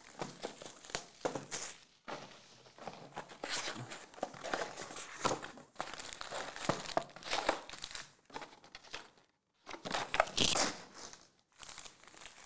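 Foil-wrapped trading card packs and their cardboard box being handled: irregular crinkling and rustling as the packs are pulled out of the box and shuffled in the hands, stopping briefly twice near the end.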